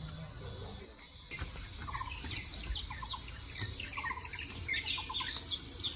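Birds chirping in many short, overlapping calls and brief trills, which thicken about a second and a half in. Under them runs a steady, high insect drone.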